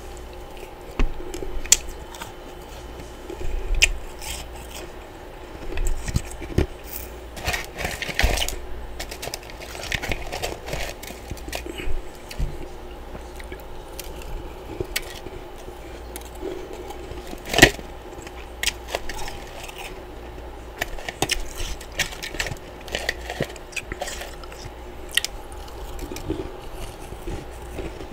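Chunks of freezer frost being bitten and chewed close to a microphone: irregular crisp crunches, with one especially loud crunch a little past halfway.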